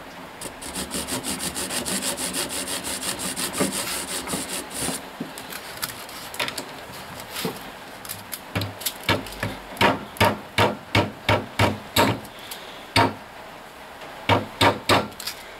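Rapid scraping as a thin stick is worked back and forth inside the clogged tubes of a Volkswagen Golf 3 heater core. Later comes a series of sharp knocks, two or three a second with short pauses, as the core is struck against a wooden table to shake the loosened debris out.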